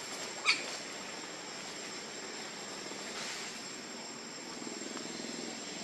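Steady drone of a distant motor, with a high, even insect buzz over it. A short, sharp sound stands out about half a second in.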